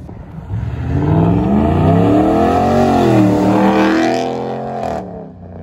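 2019 Ram 1500 Laramie pickup with its muffler and resonator deleted, accelerating hard away under throttle: a loud exhaust note that climbs in pitch, dips briefly, climbs again, then falls away near the end.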